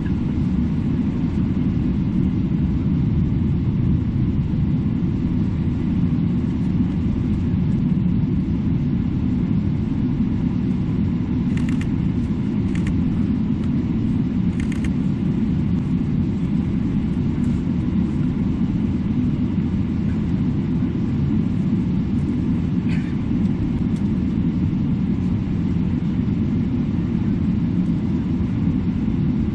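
Steady low rumble inside a jet airliner's cabin as it taxis, with the engines at low taxi power. A few faint clicks come about halfway through.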